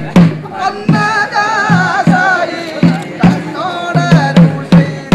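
Drum beats with a ringing low pitch, about two a second in an uneven rhythm, accompanying a voice singing a wavering folk melody, a ritual song of the Theyyam porattu performance. The singing is heard about a second in and again briefly near four seconds in.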